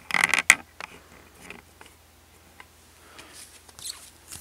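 Handling of merchandise on a wooden table: a short burst of rustling at the start, then a few light clicks and taps, and a folded paper pamphlet rustling as it is moved near the end.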